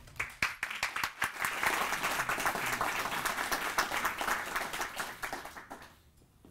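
Audience applauding: many hands clapping together, building over the first second or two and dying away near the end.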